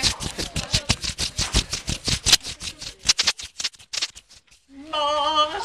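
Hand rubbing and brushing over a camera's built-in microphone while waving in front of the lens: a fast run of scratchy strokes that stops about four and a half seconds in. A voice starts just after.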